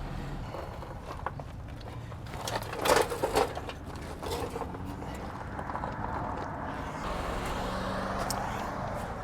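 Metal parts and tools being handled at the brake and wheel hub: a short cluster of clanks about three seconds in, over a steady background hum that grows a little louder near the end.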